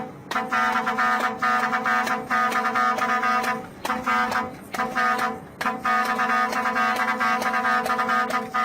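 A brassy horn tone sounding in a series of short and longer blasts, all at one steady pitch.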